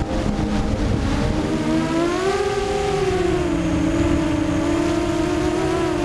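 Brushless motors of a ZMR250 racing quadcopter (Cobra 2204 2300kv) whining over a rushing noise. The pitch climbs about two seconds in, then dips and levels off as the throttle changes.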